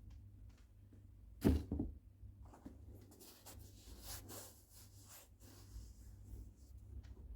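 Handling noises from sneakers and their packaging: a single thump about one and a half seconds in, then irregular rustling and scraping.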